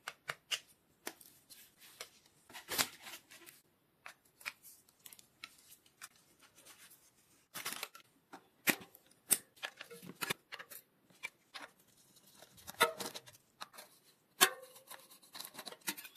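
Irregular short clicks, knocks and scrapes of hand tools and metal parts as a Shimano BR-M355 hydraulic disc brake is being removed from a mountain bike.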